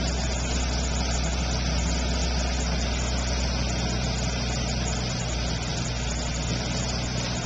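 A steady low mechanical drone, unchanging in pitch and level, like a running engine.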